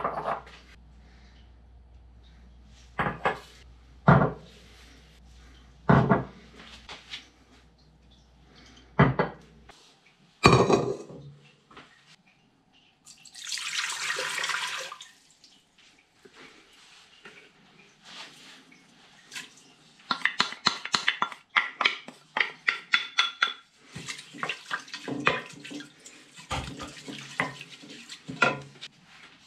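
Dishes and utensils knocking and clinking at a sink, with a tap running for about two seconds near the middle, then a long run of quick rattling clinks.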